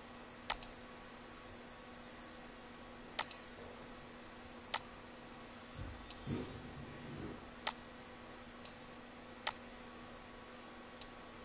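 Computer mouse button clicks, about ten sharp clicks at irregular intervals, some in quick pairs like double-clicks, as windows are opened and resized on screen.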